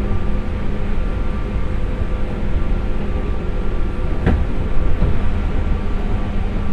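Onboard running sound of a JR West 201 series electric train at about 85 km/h, heard inside the motor car: a steady rumble of wheels on rail with several steady tones over it. A brief sharp sound cuts through about four seconds in.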